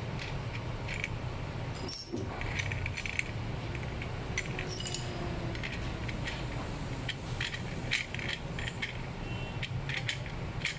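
Irregular light metallic clicks and clinks as a brush cutter's steel metal blade and chrome cup washer are fitted by hand onto the gearbox, over a steady low hum.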